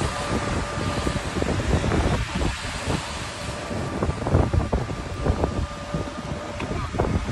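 Wind buffeting the microphone over the rumble of a golf cart riding along, with a faint steady whine and scattered knocks.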